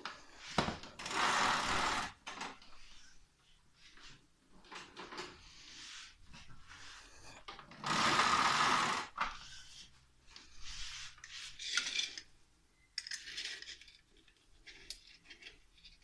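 Power cord of a Toshiba VC-222 canister vacuum cleaner being pulled out of and reeled back into the machine, in two rattling runs about a second long each, with clicks and knocks of handling between them.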